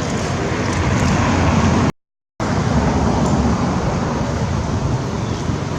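Steady outdoor background noise with a low rumble, cut by a brief complete dropout about two seconds in.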